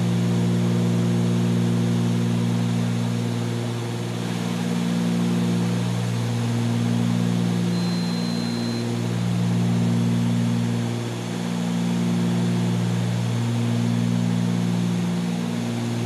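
Cockpit drone of a Cessna 310Q's twin piston engines and propellers at climb power. The drone swells and fades slowly every few seconds, the beat of two propellers not quite in sync.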